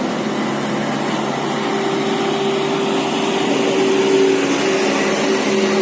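Basuri musical horns on medium trucks holding long steady notes, one clear held note starting about a second and a half in, over the steady noise of truck engines.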